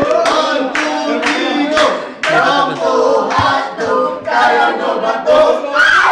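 A group of voices singing together without instruments, with hand claps.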